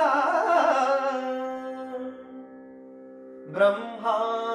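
Carnatic-style singing of a Sanskrit verse over a steady drone. The held note of the line's last syllable fades out about two seconds in, leaving the drone alone, and a new melodic phrase comes in sharply about three and a half seconds in.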